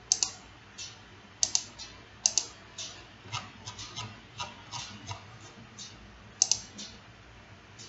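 Computer mouse clicking: a run of short, sharp clicks at irregular intervals, several in quick pairs, the loudest about a second and a half in, just after two seconds, and about six and a half seconds in.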